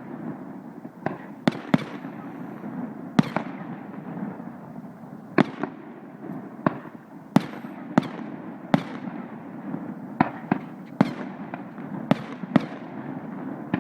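Fireworks display: about fifteen sharp bangs of aerial shells bursting at irregular intervals, roughly one every second, each trailing off in a short echo.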